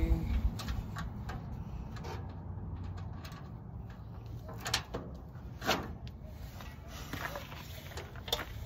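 A few scattered light clicks and knocks, the loudest two about a second apart near the middle, from the panels and crossbar of a sheet-metal barbecue cart being handled during assembly, over a steady low rumble.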